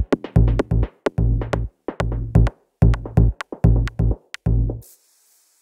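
Electronic music with a drum machine beat and heavy bass notes, cutting off suddenly just under five seconds in, leaving only a faint hiss.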